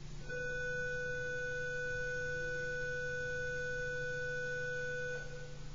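A single steady electronic tone, held at one pitch for about five seconds and then cut off abruptly.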